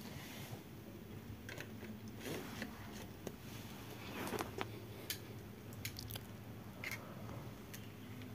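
Faint, scattered clicks and scrapes of metal parts being handled as the impeller is fitted onto the shaft of a 1 HP water pump motor.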